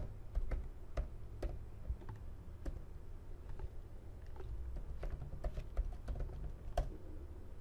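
Computer keyboard typing: separate, unevenly spaced keystrokes as a command is entered, with one louder keystroke near the end.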